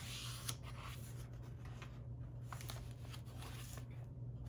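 Paper pages of a handmade junk journal being turned and handled: a rustle as a page turns right at the start, then a few light paper ticks and rubs. A steady low hum runs underneath.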